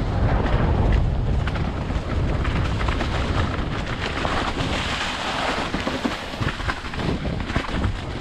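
Wind buffeting a downhill mountain bike's action camera, with the tyres rolling over leaf-covered dirt trail. Frequent short knocks and rattles as the bike takes bumps.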